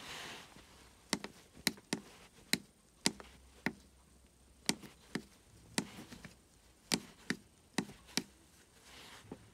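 A brief rustle, then a series of about fifteen sharp taps at irregular intervals, each short and clean.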